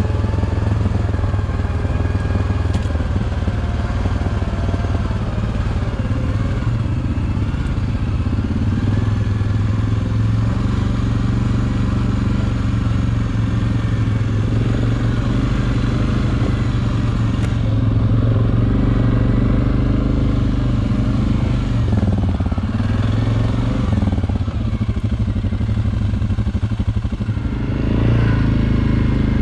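ATV engine running while riding along a dirt trail: a steady drone whose pitch rises and falls a little with the throttle, getting a bit louder near the end.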